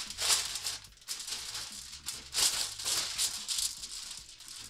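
Gloved hands rubbing oil over a sheet of aluminium foil: repeated crinkling swishes of the foil as it is smeared.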